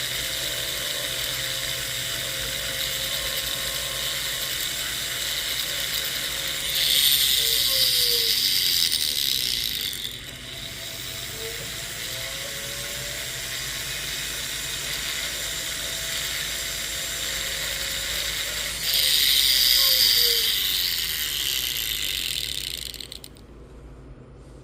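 Rotary tool spinning a silicone polishing wheel on a silver jump ring and clasp: a steady motor whine, with two louder spells of grinding hiss, about seven and nineteen seconds in, as the wheel is pressed to the metal. After each spell the whine sinks in pitch as the tool slows, and it dies away near the end.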